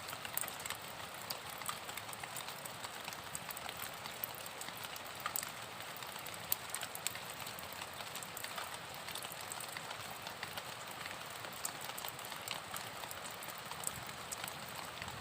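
Rain falling: a steady hiss with many small drop ticks scattered through it.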